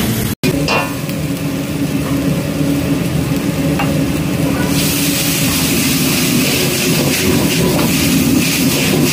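Noodles frying in a carbon-steel wok over a gas wok burner: a steady low rumble under a sizzle that grows clearly louder about halfway through. There is a brief break in the sound just after the start, and a metal ladle scrapes and tosses the noodles near the end.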